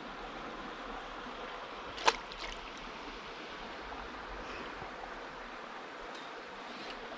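River water running steadily, with one sharp click about two seconds in and a few faint ticks near the end.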